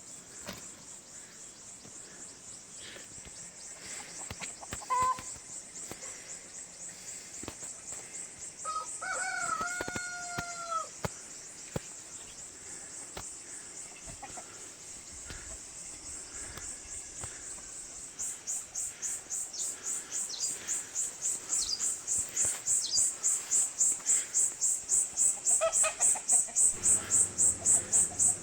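A rooster crows once, about nine seconds in, over a steady high insect drone. From about eighteen seconds a high insect call pulses about three times a second, growing louder.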